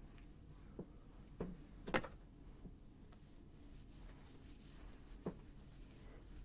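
Quiet room with a few faint, short clicks and taps from handling, the loudest about two seconds in.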